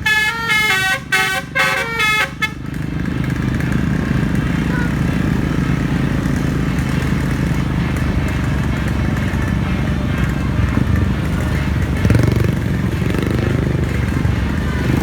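The Winspector bus's telolet (basuri) musical air horn plays a quick tune of stepping notes for the first two and a half seconds, then gives way to steady engine and road noise of moving traffic.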